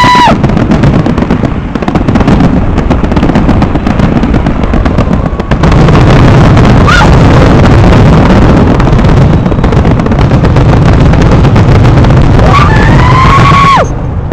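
Fireworks going off in a dense, loud barrage of rapid bangs and crackling. Near the end a high rising tone is held briefly and then drops away.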